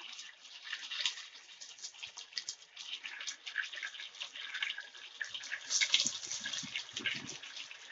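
Hot oil sizzling and crackling in a pan as wet, freshly washed raw chicken pieces go in on top of frying onions and green chillies. A few soft thuds of pieces landing come later on.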